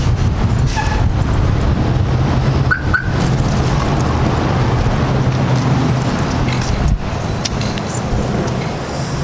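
Steady motor-vehicle noise: a car's engine hum under continuous road or traffic rumble, with a few faint clicks.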